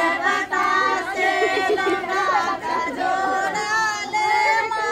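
Several women's voices singing together, overlapping one another with long held notes.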